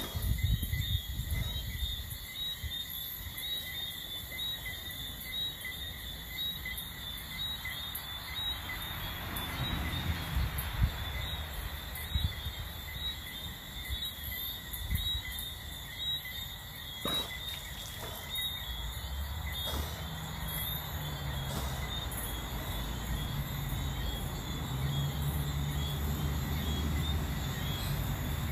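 Night chorus of crickets chirping steadily at a high pitch, over a low rumble. A low steady hum joins about two-thirds of the way in.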